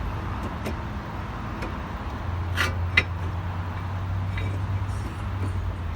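A few short metallic clicks and clinks of tools and parts during a car brake job, the sharpest about three seconds in, over a steady low hum.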